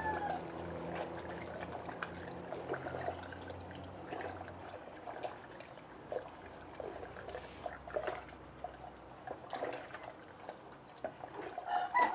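Long wooden spoon stirring tamarind atole in a clay pot: soft sloshing of the liquid with small scattered knocks of the spoon.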